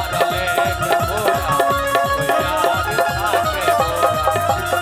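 Bhojpuri stage-show band playing an instrumental passage: a quick, steady drum beat under a melody line that bends and slides in pitch, with no singing.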